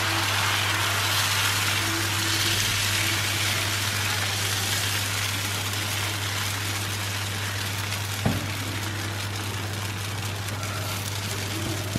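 Dosa batter sizzling on a hot cast-iron tawa while a ladle spreads it in circles, over a steady low hum, with a single knock about eight seconds in.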